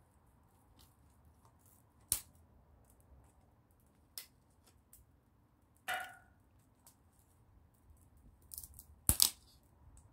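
Small open wood fire crackling with faint ticks and a few sharp pops, the loudest a double pop near the end.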